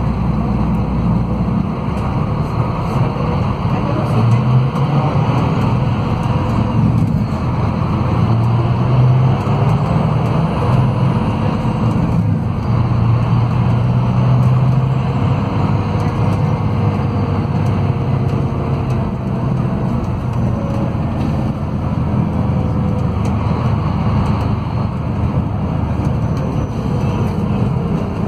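Scania DC13 inline-six diesel engine of a coach, heard from inside the passenger cabin with drivetrain and road noise, as the coach pulls away and drives on. The low engine note grows stronger from about four seconds in and eases off after about fifteen seconds.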